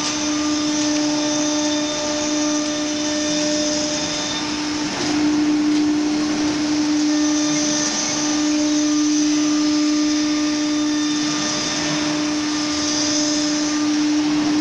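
ATC CNC router running, a steady whine over a rushing hiss, with a brief dip in the whine about five seconds in.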